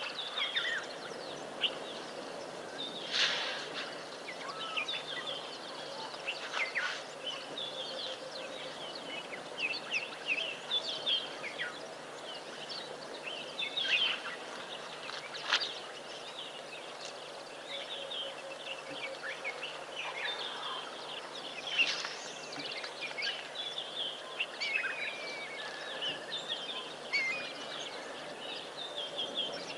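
Wild birds calling and chirping, many short calls overlapping, with a few louder sharp calls standing out. Under them runs a steady outdoor background hiss with a faint low hum.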